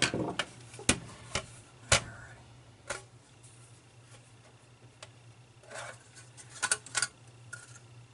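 Scattered sharp clicks and knocks of a CD-ROM drive being handled: a screwdriver put down, the drive turned over and its sheet-metal top cover worked loose and lifted off. A quick cluster of metal clicks comes near the end.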